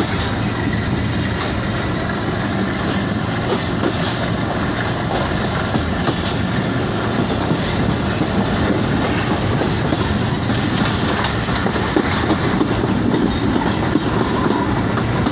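Passenger train running at speed, heard from on board: a steady rumble of the wheels on the rails with a continuous clatter and rattle from the coach.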